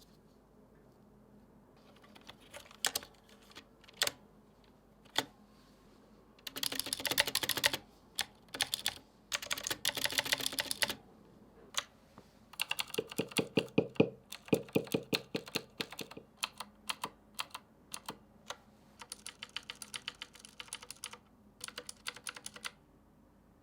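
Keys of a Razer BlackWidow X mechanical keyboard being pressed. A few single clicks come first, then fast flurries of rapid keystrokes, then a run of distinct presses and scattered single keystrokes.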